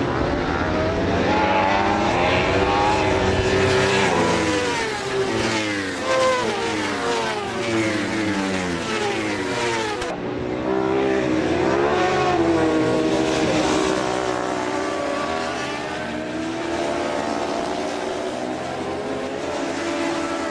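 Several Superstock 1000 racing motorcycles at race pace, their engines rising and falling in pitch as they rev through the gears and pass. The sound changes abruptly about halfway through.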